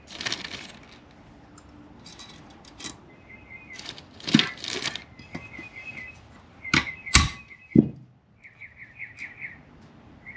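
Hammer striking a tube-type valve spring tool seated on a valve spring retainer of a Honda K24A cylinder head: three sharp metal knocks about half a second apart, knocking the valve keepers loose so the valve can come out. Before them, small parts clink and rustle as they are handled.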